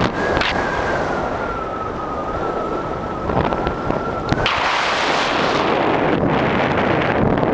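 Airflow buffeting the microphone of a camera on a pole while a tandem paraglider swings through wingovers. The rush eases through the first half, then surges back about four and a half seconds in. Over it, a thin steady high tone, sinking slightly in pitch, sounds for the first four seconds or so.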